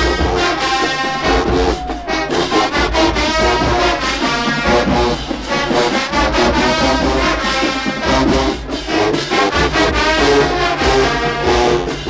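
Marching band music: massed brass horns playing a tune loudly over a pulsing low beat.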